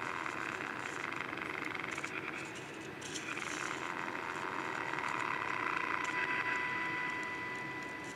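Transistor radio's speaker playing a steady test tone from a 455 kHz signal generator, over hiss and crackle. The tone fades out a couple of seconds in and comes back stronger as the IF transformer slug is adjusted. The set is still motorboating, which the repairer puts down to drifting capacitors inside the IF transformers.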